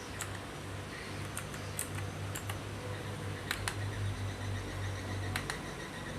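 Aula mechanical gaming keyboard with clicky blue switches being typed on: scattered, irregular key clicks, about a dozen, over a steady low hum.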